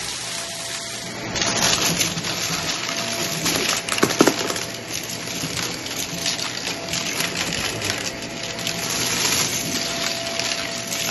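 Shark vacuum motor running steadily while its floorhead sucks Dippin' Dots off carpet, with continuous crunching and crackling of the small beads and one sharper crack about four seconds in.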